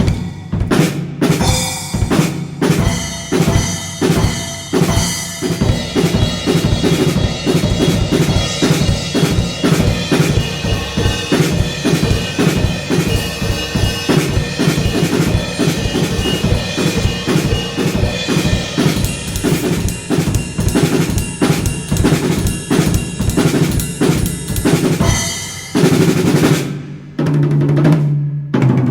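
Drum kit being played: a steady run of bass drum and snare strokes with cymbals, giving way near the end to a few lower pitched drum hits.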